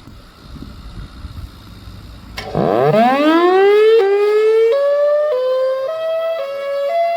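Federal Signal Thunderbolt 1003 siren starting its fire wail signal: after a low rumble, a sharp click about two and a half seconds in, then the siren's tone sweeps steeply up in pitch and keeps climbing in short up-and-down steps about every half second, loud.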